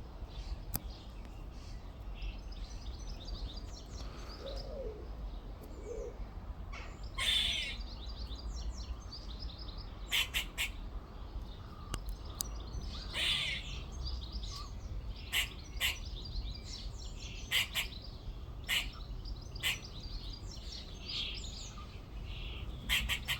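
Grey squirrel calling from a tree: a series of short, sharp chirps at irregular intervals, some in quick pairs.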